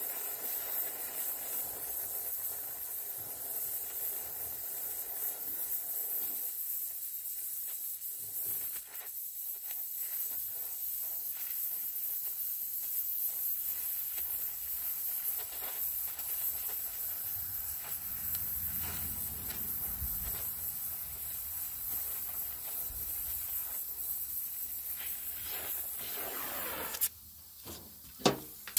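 Gas welding torch flame hissing steadily on a clamped sheet-metal joint, then shut off near the end, followed by two sharp clicks.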